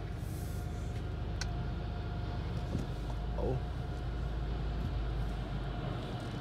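Car idling, a steady low rumble heard from inside the cabin, with a faint steady tone over it and a single click about a second and a half in.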